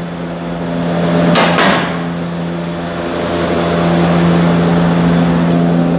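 Lexus IS250's 2.5-litre V6 idling with a steady hum, run for a minute after a fresh oil fill to circulate the new oil before the level is rechecked. A short knock about a second and a half in.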